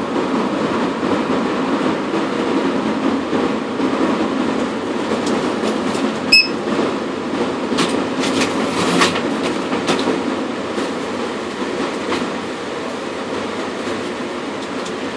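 Steady machinery rumble with no pitch changes. About six seconds in, a short electronic beep sounds with a click, and a quick run of clicks follows a couple of seconds later.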